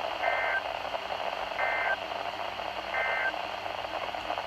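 Three short bursts of Emergency Alert System SAME data tones, two-tone digital screeches each about a third of a second long and spaced about a second and a half apart, over steady radio static. Short triple bursts like these are the end-of-message code that closes an alert.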